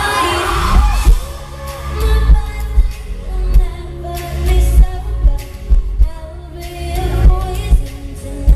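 Live pop music through a concert PA: a slow, heavy bass beat with a woman singing over it.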